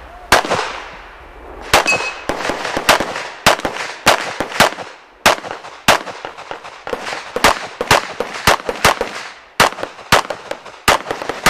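Rapid 9 mm pistol fire from a S&W M&P9 Pro on an IPSC course of fire: about two dozen shots, mostly in quick pairs with short pauses between groups while the shooter moves between targets.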